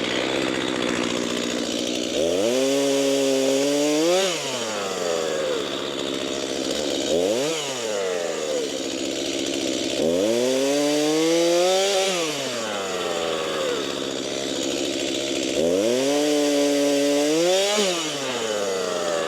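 Two-stroke Stihl chainsaw cutting cherry logs. It revs up three times for about two seconds each and once briefly, dropping back to idle in between.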